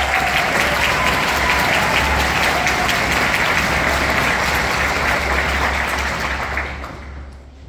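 Audience applauding steadily, dying away over the last second.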